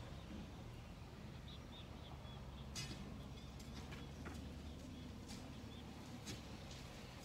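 Faint outdoor ambience with a low steady rumble, a few sharp irregular knocks starting about three seconds in, and short high chirps like a bird's.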